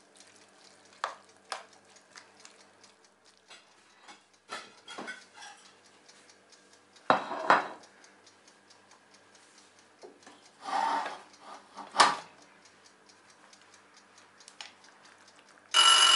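Plastic spoon stirring thick baked beans in a heavy pot, with scattered clicks and knocks of the spoon against the pot and louder clunks about seven and twelve seconds in. Near the end a kitchen timer starts ringing loudly, marking the half hour's baking time as up.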